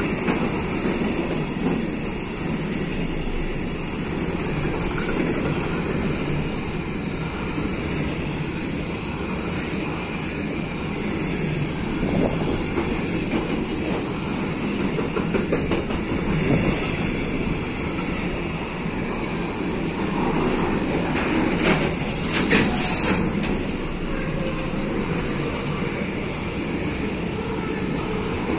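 Container freight train's flat wagons rolling past on the rails: a steady rumble of wheels on track. About 22 seconds in there is a brief, sharper high-pitched noise.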